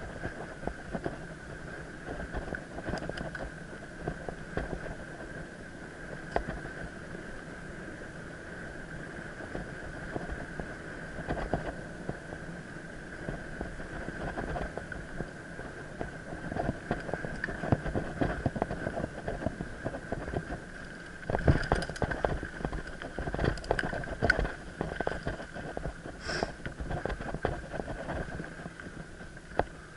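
Mountain bike ridden over a forest trail: tyres on dirt and the bike rattling and knocking over bumps, with heavier knocks from about twenty-one seconds in, over a steady thin high whine.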